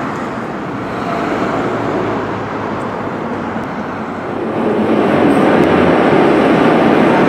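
Steady street traffic noise, then, from about four seconds in, the louder steady noise of an underground metro platform with a Moscow metro train at it.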